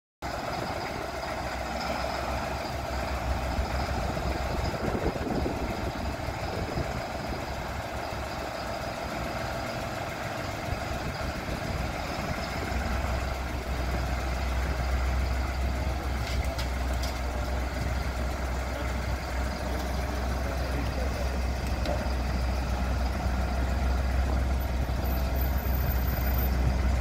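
Massey Ferguson cab tractor's diesel engine running at low revs as the tractor backs slowly out of an enclosed trailer, with a deep low rumble that grows stronger about halfway through.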